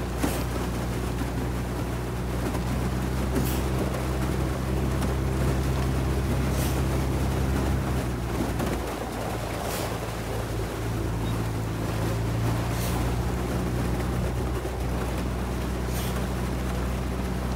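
A coaching launch's outboard motor runs steadily under a hiss of water and wind. A short splash comes about every three seconds as the rowing eight's oar blades work the water.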